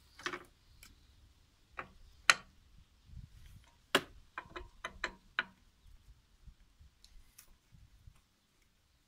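Metal-on-metal clicks of a hand wrench working the nuts on a walk-behind tractor's sickle-bar mower while its hold-down clips are undone. There are single sharp clicks at first, with the loudest a little over two seconds in, then a quick run of about seven clicks around four to five seconds in, and fainter ticks after that.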